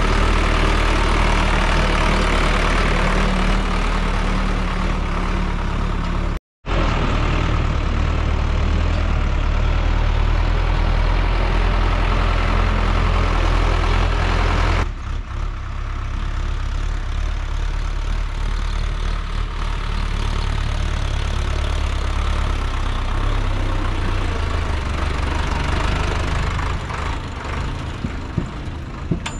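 Solis tractor's diesel engine running steadily under load, pulling a fully loaded trolley of soil. The sound drops out for a moment about six seconds in, and about halfway through it turns duller, with less of its upper sound.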